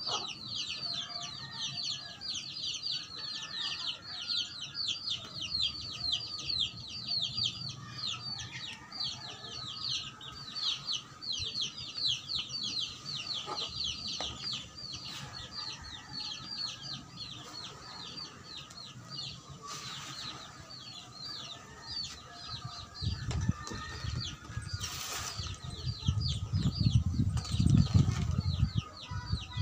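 Chicks peeping continuously in a rapid string of short, high, falling chirps, several a second. Over the last few seconds a louder low scraping and thudding of a shovel working soil joins in.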